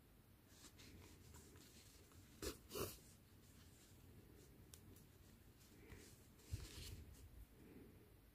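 Quiet room with faint handling sounds of a yarn needle and yarn being pulled through crocheted amigurumi fabric while an ear is sewn on: two brief scratchy rubs about two and a half seconds in, and another short rustle a little after six seconds.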